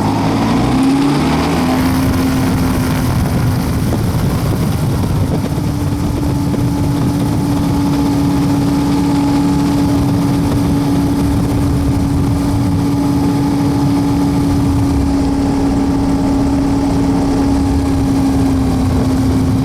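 A WAR Corsair's propeller engine heard from inside the cockpit. It rises in pitch over the first couple of seconds as power comes up, steps up once more around five seconds in, then runs steadily at high power through a fast taxi run.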